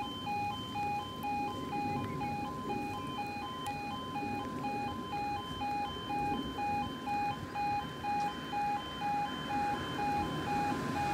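Level crossing audible warning alarm sounding while the crossing is closed for an approaching tram: a steady, rapidly pulsing two-tone electronic yodel.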